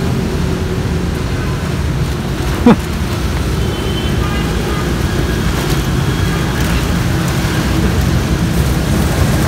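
Steady low rumbling background noise. About a third of the way in comes one brief sharp sound that falls quickly in pitch, the loudest moment.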